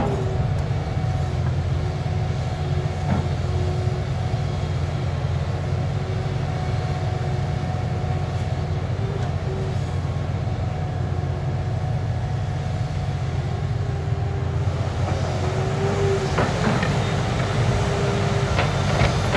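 Liebherr R 964 crawler excavator's diesel engine running steadily under load, with a steady hydraulic whine as it digs and swings. Near the end it rises and clatters as a bucketful of soil and rocks is dumped into the dump truck's body.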